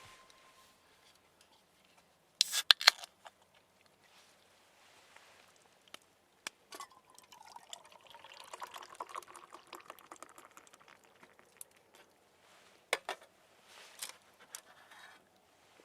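Liquid being poured into a container, the pitch of the pour rising as it fills, with a few sharp clicks and knocks before and after.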